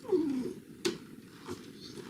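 Shiba Inu giving one short whine that falls in pitch, followed by a sharp click a little under a second in.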